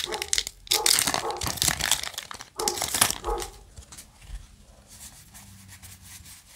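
Foil booster-pack wrapper crinkling and tearing as a trading-card pack is ripped open, in dense crackly bursts for about three seconds, then fading to soft card handling.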